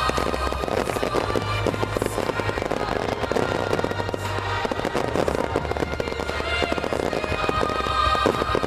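Fireworks finale: a dense, continuous barrage of firework bursts and crackling, with music playing underneath.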